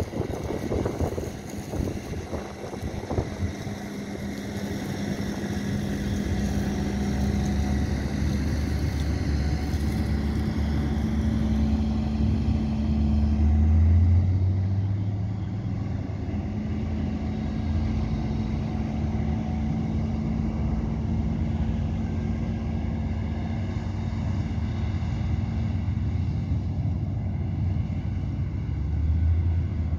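Diesel engines of maize-harvest machinery running steadily: a Claas Jaguar forage harvester at work, then a Fendt tractor hauling a tipping trailer. The hum swells to its loudest about halfway through as the tractor passes close, and there are a few knocks in the first seconds.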